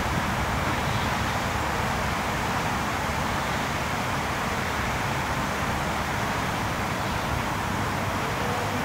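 Steady outdoor rush of distant road traffic, with a low, uneven wind rumble on the microphone underneath.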